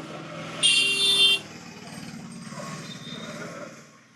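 Passing street traffic: a motor vehicle's engine hums and fades away near the end, and a horn honks loudly for under a second, about half a second in.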